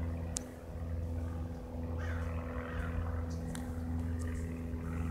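Single-engine Cessna's piston engine droning overhead, a steady low hum holding the same pitch.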